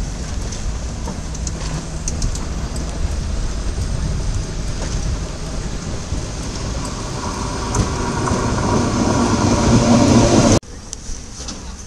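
Schynige Platte Bahn rack steam locomotive moving off with its carriage, a steady hiss of steam from around the cylinders swelling louder over the last few seconds before cutting off abruptly about ten and a half seconds in.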